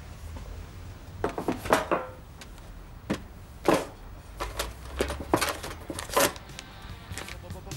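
Metal biscuit tin handled and papers rummaged inside it: an irregular run of short clatters and paper rustles.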